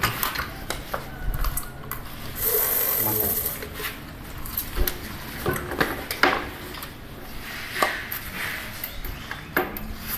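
Scattered plastic clicks and knocks from a power strip and its plug being handled, with a short rustling hiss about two and a half seconds in. The lathe motor is not running.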